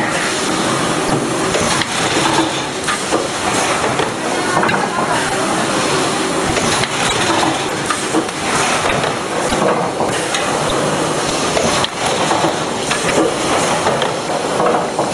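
Automatic chocolate snack-pack filling and packing machine running: a steady, dense mechanical clatter with frequent small clicks and knocks.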